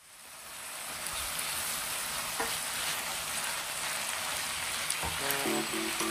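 Sauce-coated squid-ink spaghetti sizzling in a frying pan while a spatula stirs and tosses it, with a few knocks of the spatula against the pan; the sizzling fades in at the start. Background music comes in near the end.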